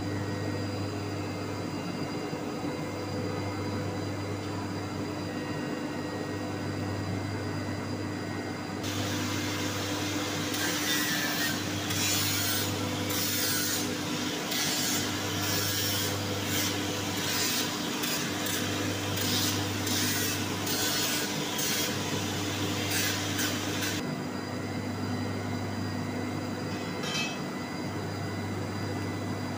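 TIG welding on a pipe joint: a steady electrical hum, its low note pulsing on and off about every second and a half. From about nine seconds in until about twenty-four seconds a louder harsh, scratchy rasping noise lies over the hum.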